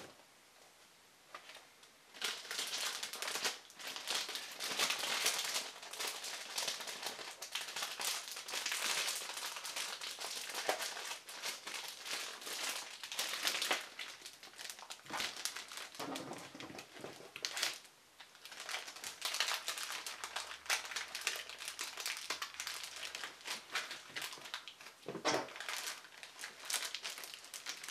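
Paper leaflets and packaging crinkling as they are handled, starting about two seconds in and going on with a few short pauses.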